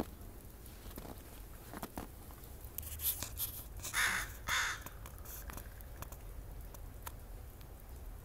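A crow cawing twice, about four seconds in, the caws half a second apart.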